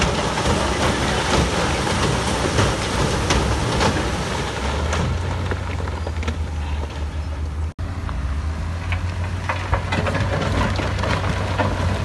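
Heavy diesel earthmoving machinery running with a steady low engine drone, overlaid by gritty scraping and scattered clanks and knocks. The sound drops out for an instant about eight seconds in.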